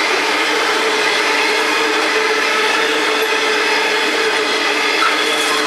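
Freight train of coal hopper wagons rolling past on the rails: a steady rolling noise of wheels on track with a few steady whining tones over it, and a single click about five seconds in.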